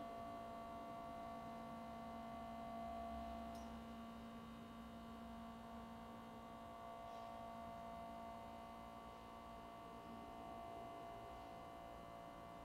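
Faint, steady electrical hum made of a few constant tones, with a soft tick roughly every three and a half seconds.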